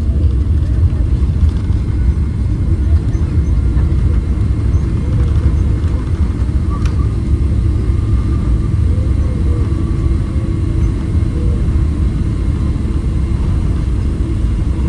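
Cabin noise of a jet airliner rolling out after landing: a steady, loud low rumble of the wheels on the runway and the turbofan engines. A brief click comes about seven seconds in.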